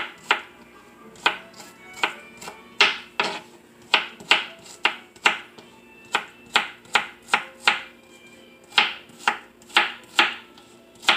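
Kitchen knife dicing an onion on a plastic cutting board: sharp knocks of the blade on the board, about two a second, with two short pauses.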